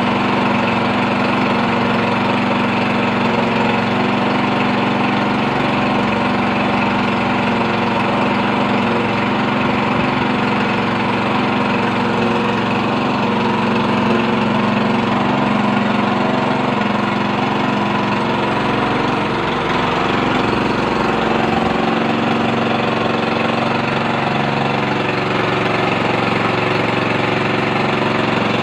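Small gasoline-engine water pump running steadily at an even speed, pumping water out of a well.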